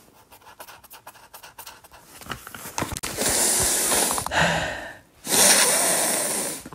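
A finger rubbing over a paper scent strip on a catalogue page, a faint scratchy rustle, followed by two long, loud sniffs close to the microphone as the scented page is smelled.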